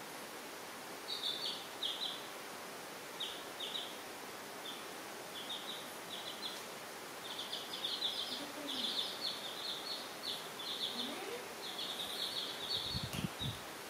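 Baby chicks peeping: short high cheeps in clusters, sparse at first and busier from about seven seconds in, over a steady hiss. A soft low bump near the end.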